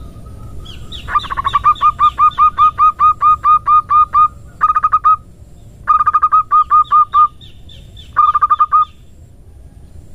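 Female zebra dove (perkutut) call used as a lure: fast runs of short, repeated rolling notes, about four or five a second, in four bursts with short pauses between, the first and longest lasting about three seconds.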